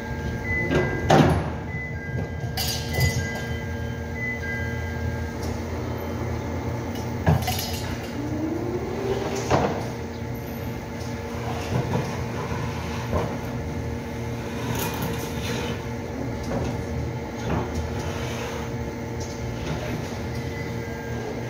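Manual hand pallet jack loaded with corrugated cardboard sheets being pulled and set down, giving sharp metal clanks and knocks with a short rising squeak about eight seconds in, over a steady machinery hum. Repeated two-tone electronic beeps sound in the first few seconds.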